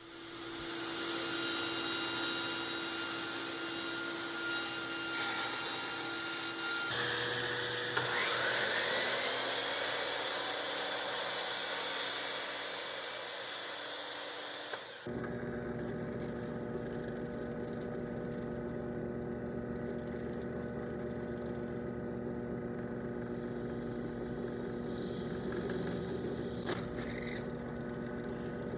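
Power saw running and cutting acrylic sheet, a loud, hissy cutting noise over the motor's steady tone, in two takes. About halfway through, it changes abruptly to a quieter, steady machine hum with a couple of steady tones.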